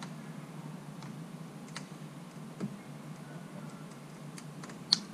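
Small plastic clicks and ticks from handling the window switch panel and plugging its wiring harness connectors back in, with one sharp, louder click about five seconds in.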